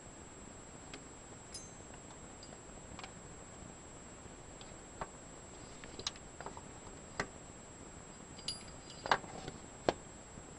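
Scattered, irregular light clicks and taps of small metal engine parts and tools being handled, loudest a little after nine seconds and near ten seconds, over a faint steady high-pitched whine.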